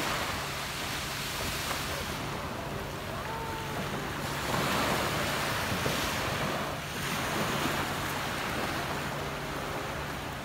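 Small waves breaking and washing up a sandy beach, with wind on the microphone. The wash swells louder twice, a little before halfway and again about three quarters through.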